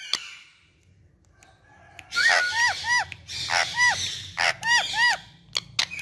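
Indian ringneck parrot calling: after a quiet start, a quick string of short rising-and-falling whistles mixed with harsh squawks, beginning about two seconds in.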